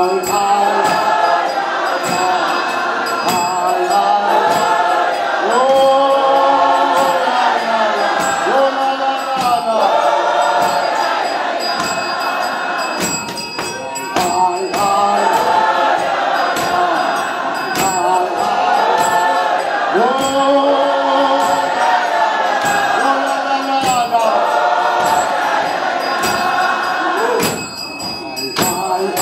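A church congregation singing a hymn together, many voices in long phrases, with a short break about halfway through and another near the end.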